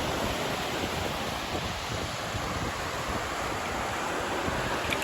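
Sea surf washing in with wind: a steady, even rushing noise.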